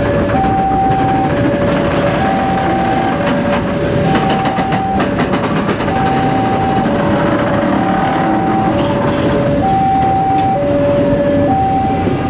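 Passenger coaches of a new K3 Premium economy train rolling past close by, wheels clicking over the rail joints. A level-crossing warning alarm sounds over it, two steady tones taking turns, high then low, each held about a second.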